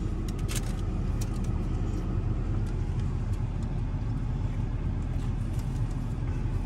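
Vehicle engine idling with a steady low rumble, heard from inside the cab, with a few faint clicks over it.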